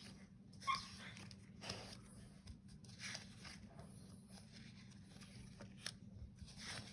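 Faint, scattered rustles and scuffs from a pet dog moving about, with one brief squeaky whine about two-thirds of a second in.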